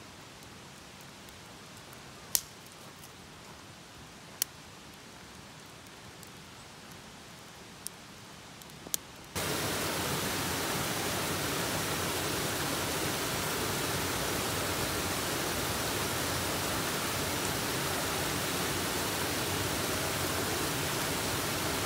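Wood fire burning quietly in a metal fire pit, with four sharp crackling pops. About nine seconds in the sound cuts suddenly to the steady rush of a small waterfall pouring over rocks into a pool.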